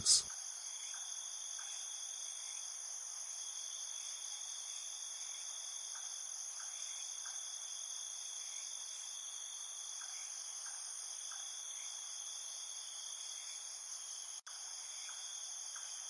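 A steady, high-pitched chorus of insects trilling without a break, with a momentary dropout near the end.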